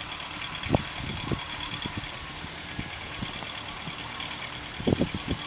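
A horse's hooves thudding on loose dirt as it runs, a few dull thumps with a quick cluster near the end, over a steady low hum like an idling engine.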